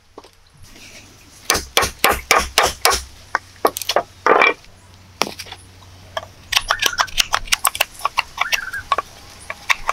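A metal blade chopping at a small wooden block, a quick run of sharp knocks about four a second, then a scrape. Near the end, fast clicking knife cuts as the block is whittled.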